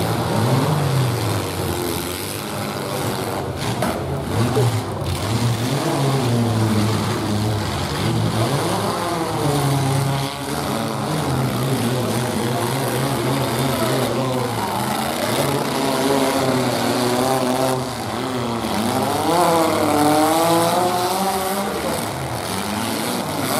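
Engines of modified compact pickup demolition-derby trucks revving hard, their pitch sweeping up and down again and again over a steady low engine drone.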